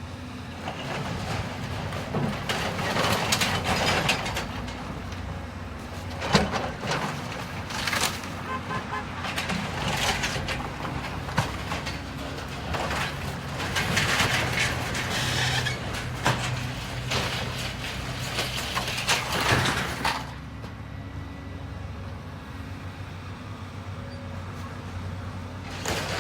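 Heavy demolition machine's engine running steadily while building debris crashes and crunches as the roof is torn down, with several sharp impacts. The crashing stops about 20 seconds in, leaving only the engine running.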